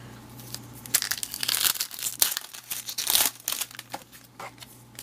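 Plastic wrapper of a baseball card pack being torn open and crinkled by hand, in irregular crackly bursts that are busiest in the middle.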